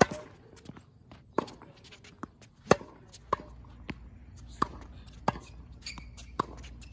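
Tennis ball struck by a racket and bouncing on a hard court: a series of sharp pops, the loudest about two and a half seconds in, then coming steadily about every two-thirds of a second.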